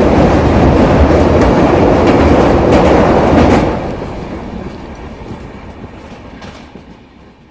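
Shatabdi Express train running at speed over a steel truss bridge, heard from an open coach doorway: a loud, dense rumble and rattle of wheels on rails. About three and a half seconds in, as the train leaves the bridge, the noise drops sharply and then fades away.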